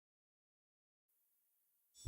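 Near silence: a dead quiet pause, with only an extremely faint hiss creeping in during the second half.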